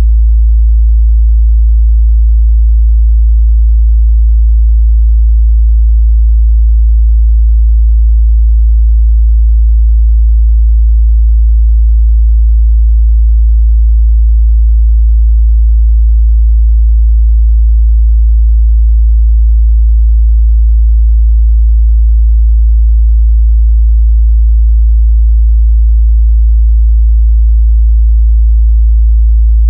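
A steady, loud 55 Hz sine test tone: one unbroken low bass hum that holds the same pitch and level throughout.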